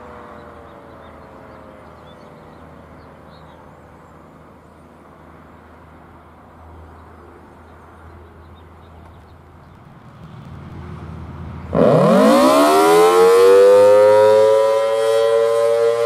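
Federal Signal Thunderbolt 1000T civil defense siren with a 4/5-port chopper, 1950s. The faint tail of a wind-down fades in the first few seconds. About twelve seconds in, the siren starts suddenly, loud, its chord of tones sweeping quickly up in pitch and then holding steady.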